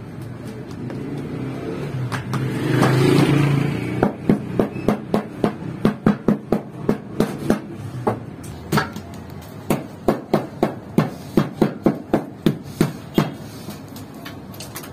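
Hands slapping and patting flatbread dough flat in quick, even strokes, about three slaps a second, in two runs with a short pause midway. Before the slaps, a rushing sound swells and fades.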